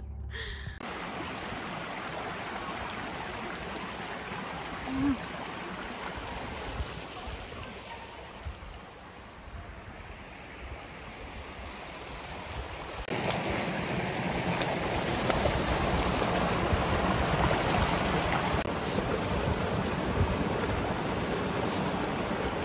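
Rocky creek flowing over stones, a steady rush of water. About halfway through it gives way to a louder rush of small waterfalls pouring over boulders into a pool.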